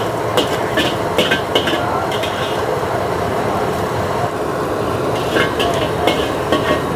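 A metal spatula scraping and clanking against a steel wok in quick strokes while stir-frying egg, in a run at the start and another about five seconds in, over a steady frying sizzle.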